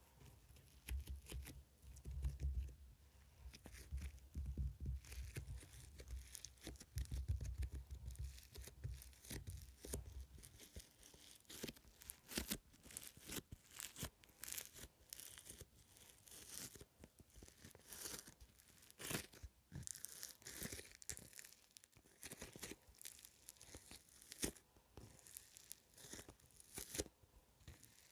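Strawberry-milk foam slime being pressed and kneaded with fingers in a plastic tub, giving a dense, irregular crackling of small clicks. A low rumble of hand handling sits under it for about the first ten seconds.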